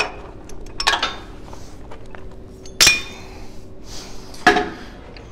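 Steel pins and a ratchet jack clinking against a steel implement frame as the jack is unpinned and taken off: four sharp metallic clinks, the loudest about three seconds in with a brief ring.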